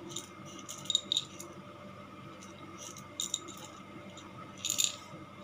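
Brief dry rattles and clicks of whole cloves being handled and set down, in small clusters about a second in, just after three seconds, and loudest near the end.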